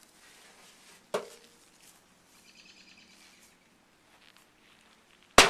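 A clay-filled Bunker Buster firecracker exploding with a single sharp bang near the end, after a lighter knock about a second in.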